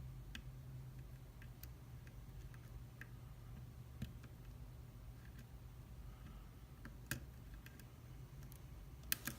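Faint, irregular small metallic clicks of lock picks and a tension wrench working inside a padlock, over a low steady hum.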